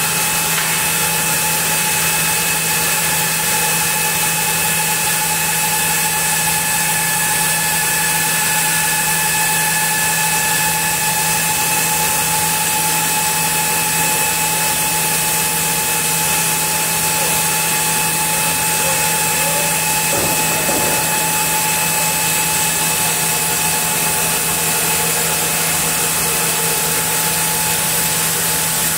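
Sawmill band saw running steadily, cutting lengthwise through a camphor log as the carriage feeds it past the blade. It makes an even hum with steady whining tones above it and a high hiss.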